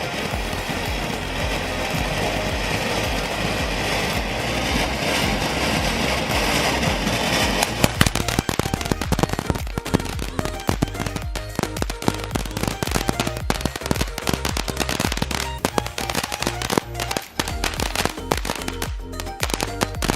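Consumer ground firework going off: a steady spraying hiss, then from about eight seconds in a rapid string of crackling pops like a machine gun.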